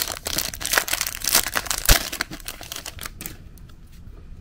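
Plastic wrapper of a baseball card pack being torn open and crinkled, with one sharp click near the two-second mark. The crinkling stops a little after three seconds in.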